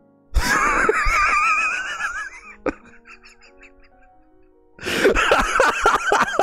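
A man laughing hard: a long, high, wavering laugh for about two seconds, a short quiet gap, then a run of quick laugh pulses near the end. Faint background music with steady notes plays underneath.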